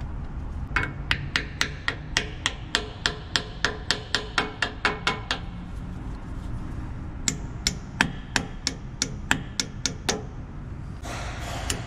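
Hammer tapping a locking pin into the gear of a Hale fire pump's bearing assembly: two runs of quick, sharp metallic taps, about three a second, with a pause of about two seconds between them.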